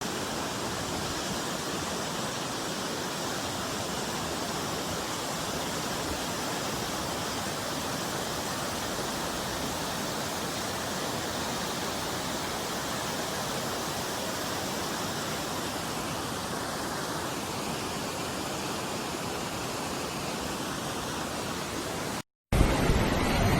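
Steady, even rush of fast-flowing floodwater. Near the end it cuts off abruptly and gives way to a louder, rougher rush.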